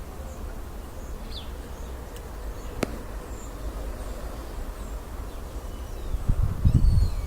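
Outdoor garden ambience: a few faint, brief bird chirps over a steady low rumble. There is one sharp click about three seconds in, and the rumble grows louder and gusty near the end.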